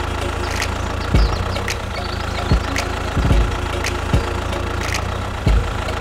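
Tractor engine idling steadily, with five short low thuds spread through it and a few light clicks.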